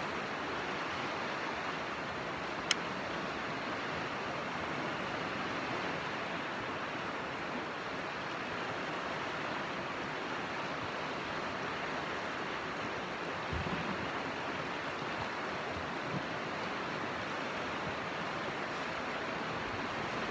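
Steady rushing of river rapids, an even roar of fast water. A single sharp click stands out about three seconds in.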